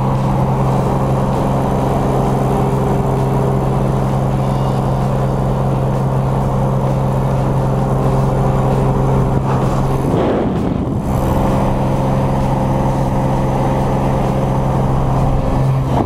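Single-engine light plane's piston engine and propeller droning steadily, with wind rushing through the open jump door. About ten seconds in, the drone briefly breaks up in a rush of wind noise.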